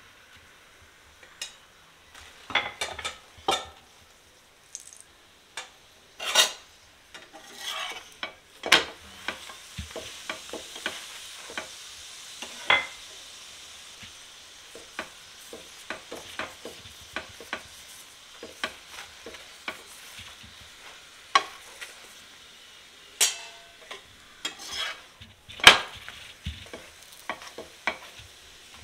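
Oiled paratha frying on a flat nonstick tawa, sizzling quietly, with scattered short scrapes and taps of a metal spatula against the pan; the loudest taps come about six seconds in and near the end.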